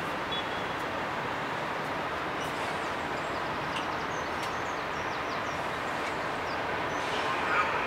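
Steady din of vehicle traffic and machinery at a ferry port as cars and lorries drive off a roll-on/roll-off ferry, with faint short high squeaks over it and a brief louder swell near the end.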